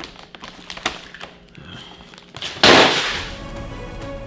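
Plastic candy packaging crinkling and rustling as it is handled, with small clicks throughout and one loud, sudden rustle about two and a half seconds in that dies away within half a second.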